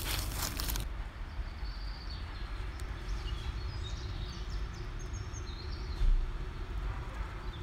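Woodland birds chirping and twittering in short high calls over a steady low rumble. There is a brief rustle of dry leaves at the start and a short low thump about six seconds in.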